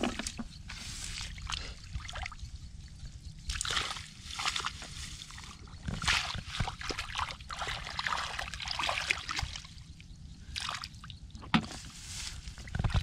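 Hands and bare feet sloshing and splashing in shallow muddy water, in irregular bursts, as the mud is groped through by hand.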